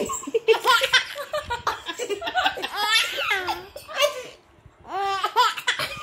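Baby laughing in repeated bursts, with high rising-and-falling squeals near the middle and a brief pause about four and a half seconds in.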